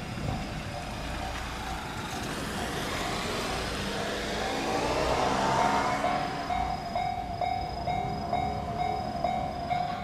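Japanese railroad crossing warning bell ringing in a steady electronic ding-ding of about two strokes a second, loud from about six seconds in as the crossing lights flash and the barriers lower. Before that a passing road vehicle's engine swells and fades under it.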